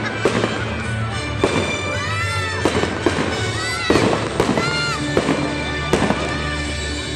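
Aerial fireworks going off in a series of sharp bangs, about one or two a second, with music playing underneath.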